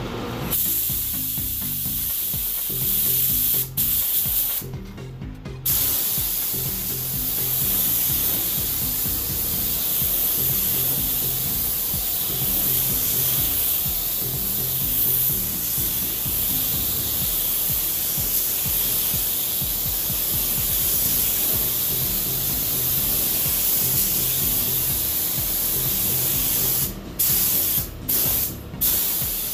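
Compressed-air gravity-feed spray gun spraying a coat of paint in a steady hiss. It cuts off briefly about four seconds in, stops for about a second just after, and breaks three times near the end as the trigger is let go between passes.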